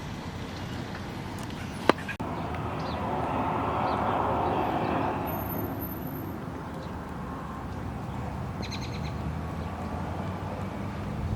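Outdoor ambience: a steady low rumble that swells and fades over the middle few seconds, with a sharp click about two seconds in. A quick series of short bird chirps comes near the end.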